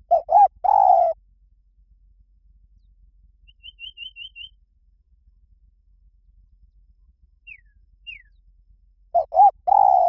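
Spotted dove cooing: two phrases about nine seconds apart, each two short coos followed by a longer drawn-out one. Faint high chirps from a small bird come in between: a quick run of five, then two short falling notes.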